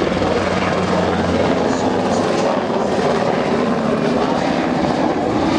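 Royal Australian Navy Sikorsky MH-60R Seahawk helicopter flying past: steady rotor and twin-turboshaft engine noise. Its deep low hum drops away about a second and a half in.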